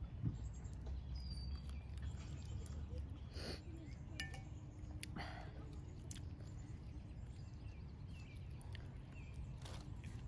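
Quiet outdoor ambience with a low wind rumble on the microphone, and scattered light clicks and crackles of lettuce wraps being handled and eaten.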